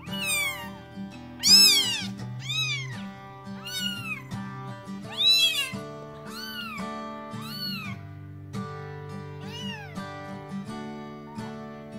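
A hungry 16-day-old kitten meowing over and over, about eight high cries that each rise and fall in pitch, the loudest about a second and a half in and again past five seconds, as it is fed milk from a syringe. Soft background music runs underneath.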